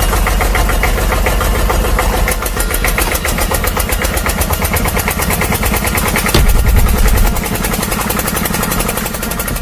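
An engine running with a fast, even chug, growing louder for about a second roughly six and a half seconds in, like an excavator's engine sound.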